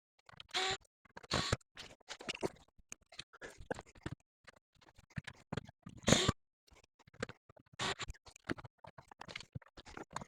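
Irregular clicks, scrapes and light clatter of screws and hand tools on the metal chassis of a Harman/kardon AVR100 receiver being taken apart, with one louder knock about six seconds in.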